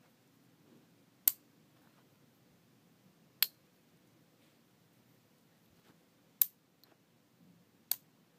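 Magnetic toy building rods snapping onto each other, four sharp clicks spaced one to three seconds apart, with a fainter click between the last two.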